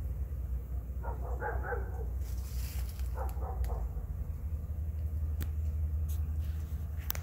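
A dog barking in two short bursts of several barks, a few seconds apart, over a steady low rumble.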